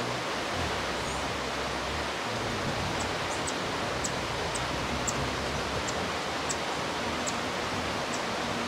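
Steady rushing noise with no pitch to it. From about three seconds in, a run of short, very high chip notes repeats about twice a second.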